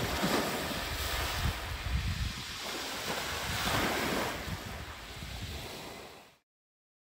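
Small waves lapping and washing onto a shingle beach, in gentle swells, with wind buffeting the microphone. The sound fades out about a second before the end.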